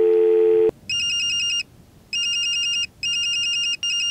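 A steady low beep lasting under a second, then a phone's electronic ringtone sounding in repeated bursts of about three-quarters of a second with short gaps.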